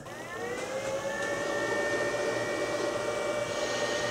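12-volt power inverter starting up as the battery backup takes over the house circuits: a whine that rises in pitch over about the first second, then holds steady.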